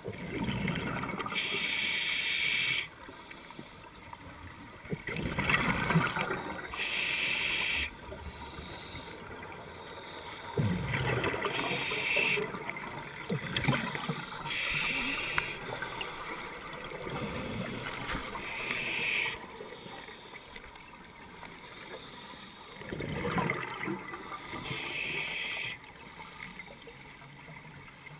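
Scuba diver breathing through a regulator underwater: a hiss on each inhale, then a burst of exhaled bubbles, repeating about every four to five seconds.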